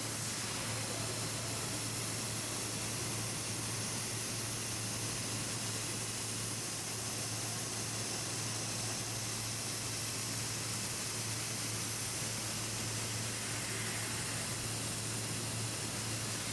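Fiber laser cutting machine cutting 12 mm carbon steel plate: a steady hiss from the gas jet and the cut, with a steady low hum underneath.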